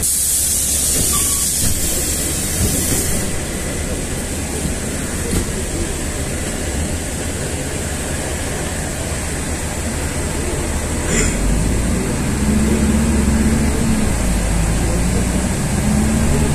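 Inside a LiAZ-5292 city bus on the move: the engine rumbles low and steady under road noise. About twelve seconds in it grows louder, with a whine rising and falling in pitch as the bus pulls on.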